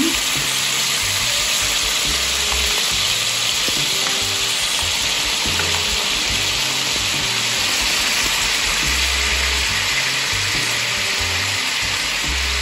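Pork rib rack frying in a pan, with a steady sizzle as the soy-and-honey sauce bubbles and reduces around it into a glaze.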